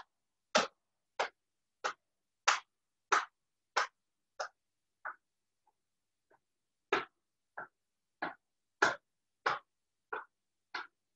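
A hand tapping rhythmically on the chest and torso, about one and a half taps a second, as qigong self-tapping up the midline of the body. The taps grow faint for about a second near the middle, then resume at full strength.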